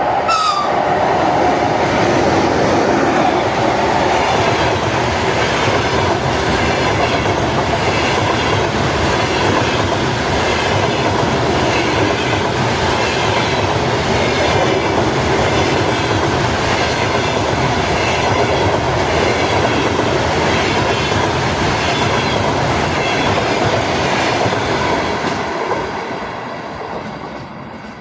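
Passenger train hauled by an EP1M electric locomotive passing close by, with a steady rush of wheels and running gear and the coaches' wheels clicking over rail joints in a repeating rhythm. The sound fades away over the last few seconds as the train recedes.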